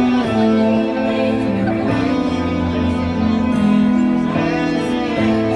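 Instrumental introduction of a song: guitar over held chords that change every second or two.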